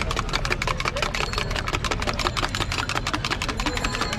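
Metal spoon stirred briskly in a small steel mug of liquid, clinking rapidly and evenly against its sides, over a steady low engine rumble.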